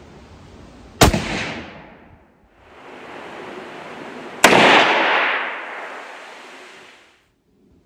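Two shots from a Marlin 336 lever-action .30-30 rifle, about three and a half seconds apart, each a sharp crack trailing off into echo; the second has the longer tail.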